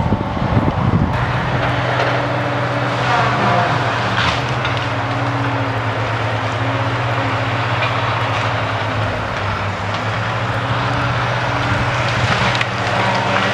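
An engine running steadily at a constant pitch. Wind buffets the microphone during the first second.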